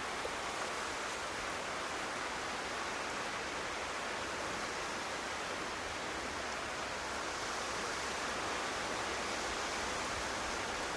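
Steady, even rush of sea surf along an island shore, with no distinct breaks or swells.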